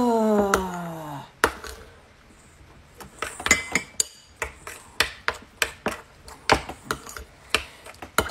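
A voice's brief falling hum at the start, then a metal spoon stirring oatmeal in a bowl, clinking against the bowl about three times a second from about three seconds in.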